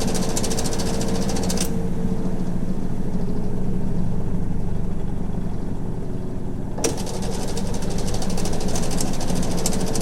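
Old non-inverter, belt-driven Hitachi NW-6AZ washing machine running empty, mainly in its spin cycle: a heavy, steady motor hum with a fast rattle on top. The rattle stops about two seconds in and comes back near the seven-second mark with a sharp click. The machine is well worn and makes abnormal noises.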